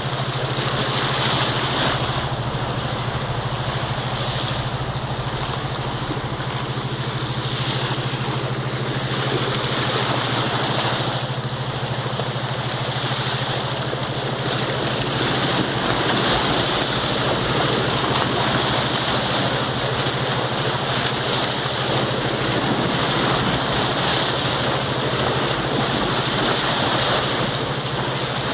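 Small waves washing onto a sandy shore, with wind buffeting the microphone and a steady low hum underneath.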